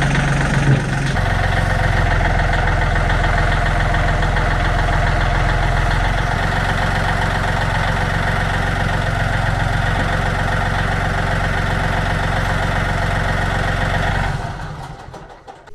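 John Deere 3032E compact tractor's three-cylinder diesel engine running steadily, then fading out near the end.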